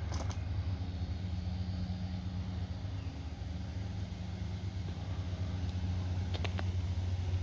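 Steady low rumble of an engine or motor running, with a few brief clicks near the start and about six and a half seconds in.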